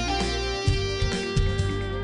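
Instrumental closing music led by guitar, with held notes over a steady beat.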